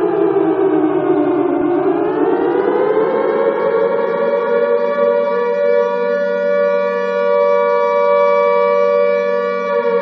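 Alarm siren wailing: its pitch falls for about two seconds, climbs again, then holds a steady note for the rest of the time.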